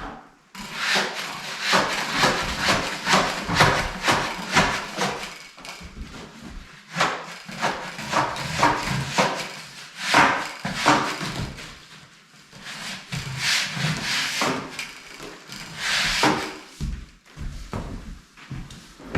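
Flat metal blade scraping dampened popcorn ceiling texture off drywall in quick repeated strokes, about two or three a second, with a couple of short pauses.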